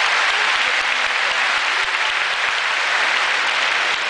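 Large audience applauding steadily, a dense, even patter of many hands clapping.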